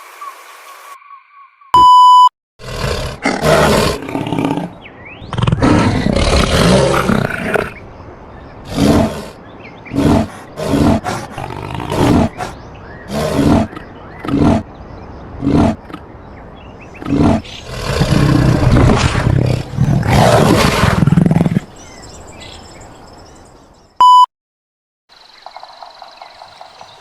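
Reconstructed dinosaur calls: a series of loud roars, some long ones lasting a few seconds and many short ones in quick succession. A short electronic beep comes just before the roars begin and another a few seconds after they end.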